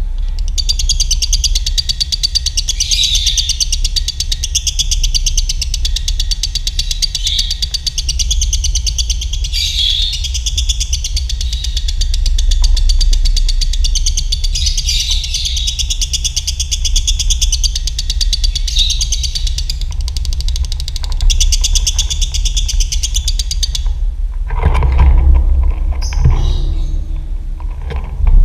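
Lovebird singing a very fast, unbroken high trill (the long 'ngekek' chatter of the doubled 'dobelan' song). It stops about 24 seconds in, and shorter, rougher sounds follow. A steady low hum runs underneath.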